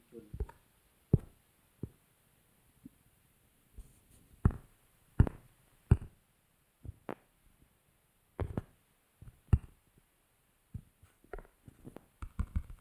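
Fingertip taps and handling knocks on a smartphone, picked up by the phone's own microphone: single dull taps every second or so, then a quick run of taps near the end as typing on the on-screen keyboard begins.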